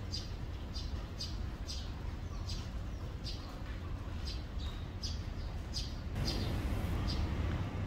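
Eurasian tree sparrows chirping: short, high single chirps about twice a second, over a steady low rumble. A louder, steady hiss comes in near the end.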